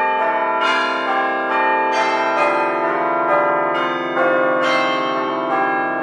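Church bells pealing: bells struck about twice a second, each strike's tones ringing on and overlapping with the next.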